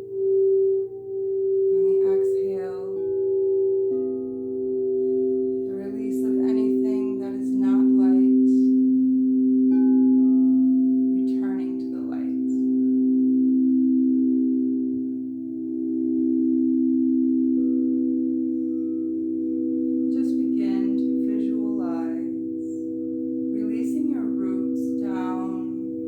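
Singing bowls ringing together, several sustained low tones overlapping and pulsing as they beat against one another, with further bowls joining a few seconds in and again later. Short wavering higher sounds rise over them now and then.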